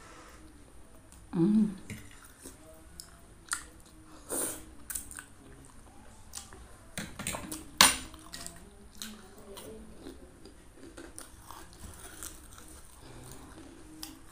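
Close-up chewing of instant noodles and a boiled egg in broth, with wet mouth clicks. There is a short hum about a second and a half in, and sharper clicks about 4.5 and 8 seconds in.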